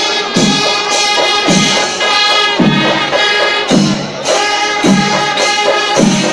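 Kerala temple festival music: a held, pitched wind-instrument melody over drum strokes that come about once a second.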